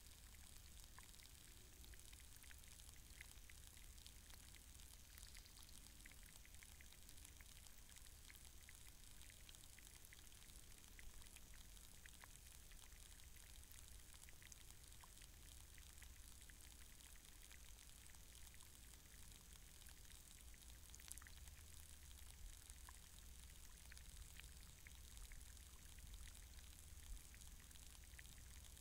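Faint underwater sound of a shallow muddy puddle picked up by a hydrophone: a steady hiss over a low rumble, with scattered tiny clicks and ticks, a few of them louder.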